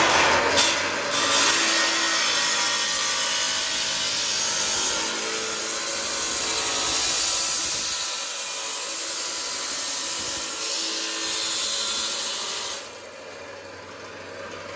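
Abrasive chop saw grinding through a sheet-steel door-frame profile. The cutting noise starts abruptly, runs steadily for about thirteen seconds, then drops away near the end, leaving the motor running more quietly.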